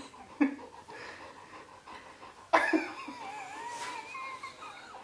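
A golden retriever whines in one long wavering tone, starting about halfway through, while a man laughs.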